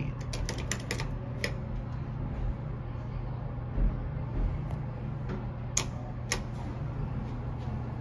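A quick run of light clicks and taps as fingers press the metal touch-sensitive buttons on an Otis elevator car panel, over a steady low hum in the car. Two more sharp clicks come about six seconds in.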